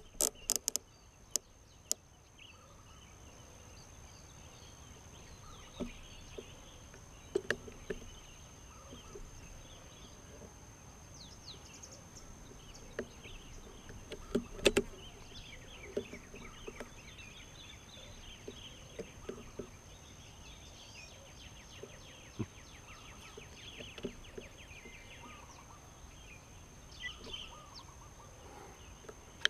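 Open-country ambience with small birds chirping and calling on and off, over a steady high whine. In the first second a fast, even run of sharp clicks from the rifle scope's turret being dialled comes to an end. A few single sharp knocks follow, the loudest about halfway.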